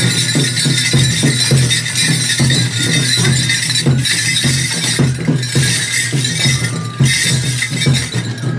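Enburi festival ensemble playing: a quick, even beat of drum and small metal hand cymbals over steady flute tones, with metallic clinking and jingling.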